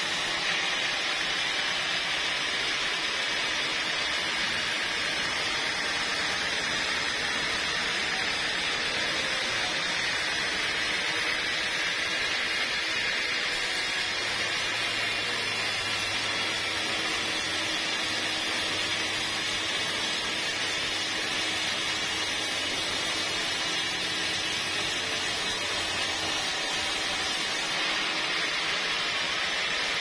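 Band sawmill at work, its vertical band blade ripping lengthwise through a large log: a steady, even sawing noise with no breaks, and a low hum from the machine that comes in about halfway through.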